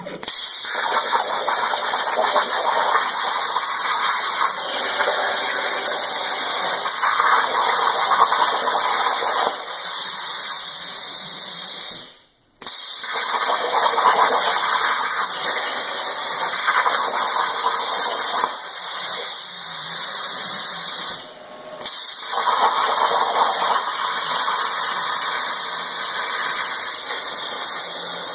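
Homemade CNC plasma cutter's torch cutting: a steady, loud hiss of the arc and its air stream, starting suddenly. It stops for a moment twice, about twelve seconds in and about twenty-one seconds in, as the arc goes off and restarts for the next cut.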